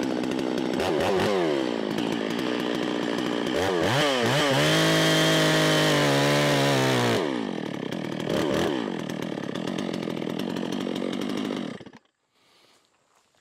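92 cc two-stroke chainsaw revved up and down a few times, then held at full throttle for about three seconds as its chain cuts into chainsaw chaps. The chain keeps driving and tears the chaps' protective fibers out instead of stalling. The engine then drops back to a lower speed and cuts off suddenly near the end when it is switched off.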